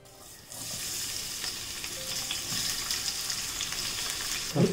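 Chopped onions hitting hot olive oil in a saucepan and sizzling steadily from about half a second in, as they begin to sauté.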